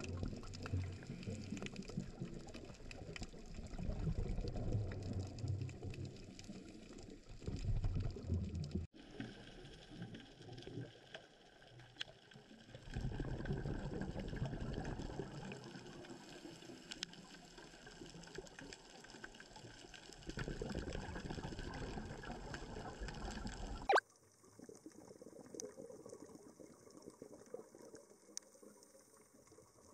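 Underwater sound recorded through a camera's waterproof housing: a scuba diver's exhaled bubbles bursting out in bursts a few seconds long every few seconds, over steady water hiss. The bubbling stops abruptly about 24 seconds in, leaving fainter water noise.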